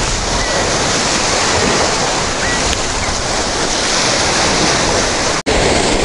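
Storm surf: heavy sea waves breaking and washing, with wind noise on the microphone. The sound cuts out for an instant near the end.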